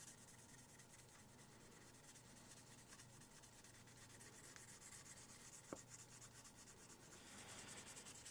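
Faint rubbing of a sanding sponge over cured putty on a small 3D-printed plastic model, smoothing out a seam. One small click a little past halfway.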